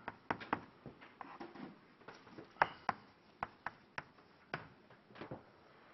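Chalk writing on a blackboard: irregular sharp taps and short scratches as the chalk strikes and drags across the board.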